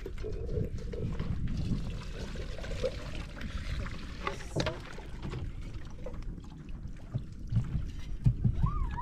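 Water poured from a plastic jerrycan into a plastic basin of soaked grain, splashing and sloshing as the grain is rinsed.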